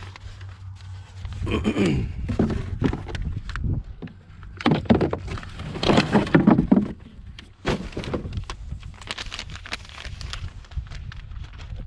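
A cardboard box being handled and shifted inside a plastic kayak hull: rustling, clicks and knocks, with a few drawn-out squeaks that fall in pitch, loudest in the middle.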